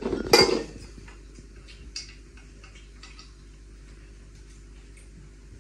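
Metal tube parts of a stand being handled and fitted together by hand: a short clatter about half a second in, then scattered light metallic ticks and taps.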